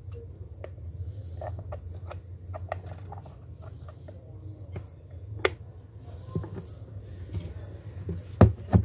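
Plastic housing of a dome security camera being handled and pressed shut: scattered small clicks and a sharp snap about halfway through, then two louder knocks near the end. A steady low hum runs underneath.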